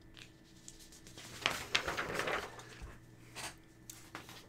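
Sheets of paper rustling and sliding as a drawn sheet is pulled away and a blank one put down. A stretch of scuffing starts about a second and a half in, with a shorter rustle near the end.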